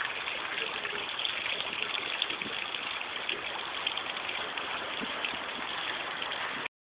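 Water from a garden pond's rockery waterfall splashing steadily into the pond. The sound cuts off abruptly near the end.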